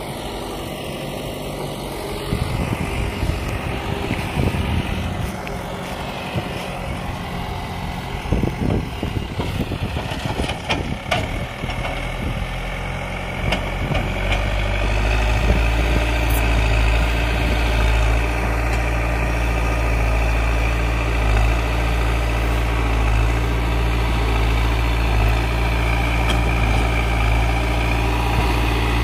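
Diesel engine of a JCB backhoe loader running while it moves soil. There are scattered knocks and clatter in the first ten seconds or so. From about twelve seconds in, the low engine note grows louder and steadier.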